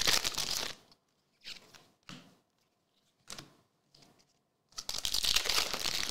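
Foil trading-card pack wrappers being torn open and crinkled: a crackly rip ending just under a second in and another in the last second or so, with a few soft card-handling sounds in between.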